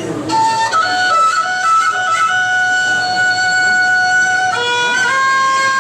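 Instrumental passage of traditional dan music: a single melody instrument plays long, steady held notes, moving to new pitches about a second in and again near the end.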